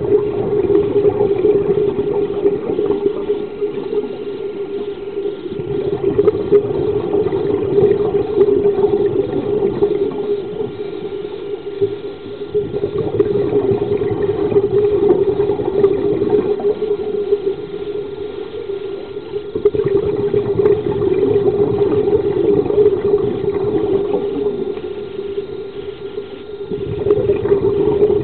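Underwater sound of scuba divers breathing through their regulators: the rush of exhaled bubbles swells and fades about every six to seven seconds over a steady, muffled hum.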